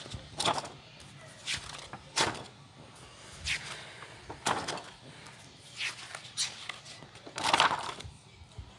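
Paper pages of a spiral-bound sketchbook rustling and being turned by hand: a series of short papery swishes about once a second, the loudest one near the end.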